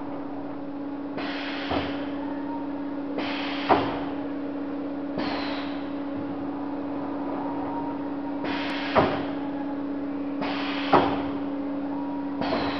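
Starview PH6 six-station rotary sealer cycling over a steady motor hum. Six times, about every two seconds, it gives a short hiss that ends in a sharp clunk as the table indexes and the station closes.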